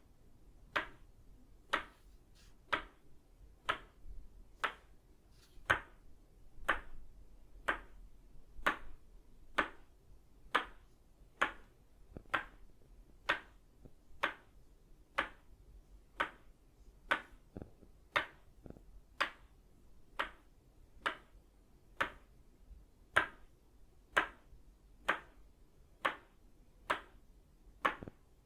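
Tok Sen itauba-wood mallet striking an itauba-wood peg in a steady rhythm, about one sharp wooden knock a second.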